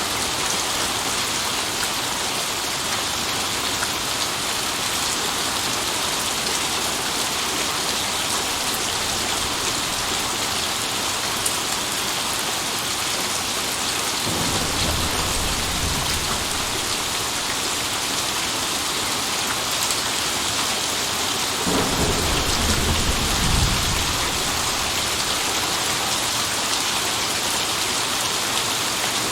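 Steady heavy rain hissing. Thunder rumbles low about halfway through, and again, louder, a little later.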